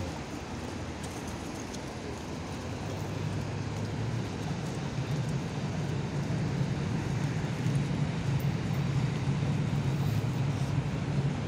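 Freight train hauled by a VL80 electric locomotive running past close by: a steady rumble and hum that grows louder from about four seconds in.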